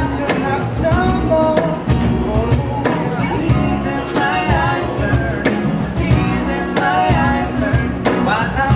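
Acoustic street band playing: acoustic guitar strumming, upright double bass and a cajon beating a steady rhythm, with a male voice singing over them.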